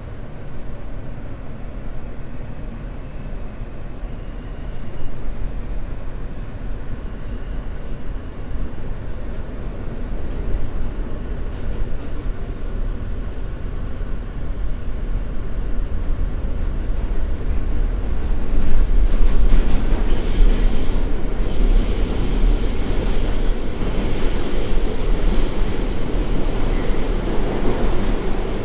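New York City subway train heard from inside the car, pulling away and gathering speed, a low rumble growing steadily louder. About two-thirds of the way through, a high steel-wheel squeal sets in and holds as the rumble peaks.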